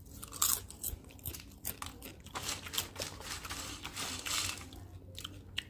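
Sugar-coated popcorn crunching and crinkling as it is picked from a plate beside its plastic packet and chewed, in a run of small irregular crackles.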